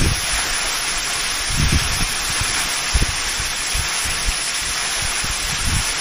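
Steady rush of water from a tall waterfall, the 72-metre three-tier Fudō Falls, with wind buffeting the microphone now and then in short low thumps.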